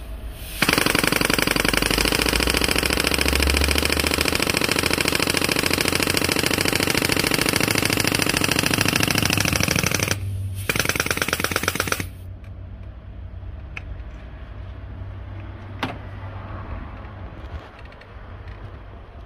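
Pneumatic injector-puller air hammer hammering rapidly on a stuck diesel injector to work it loose. It runs for about ten seconds, stops briefly, gives a short second burst, then stops.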